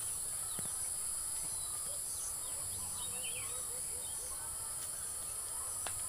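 A steady high-pitched drone of insects such as crickets or cicadas, with a few faint bird chirps scattered through it.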